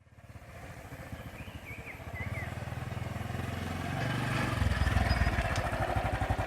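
Piston air compressor starting up and running, a rapid, even pulsing of piston strokes that grows louder over the first few seconds.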